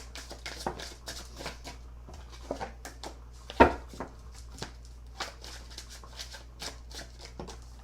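A deck of tarot cards being shuffled by hand: a quick, irregular run of soft card slaps and flicks, with one louder knock about three and a half seconds in.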